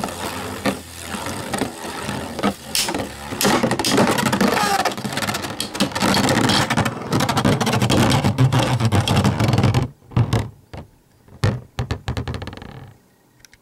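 Spinning tops rattling and clashing against each other in a plastic stadium, with a dense run of scraping and knocking. About ten seconds in it thins to a few scattered knocks and fades out as the tops wind down.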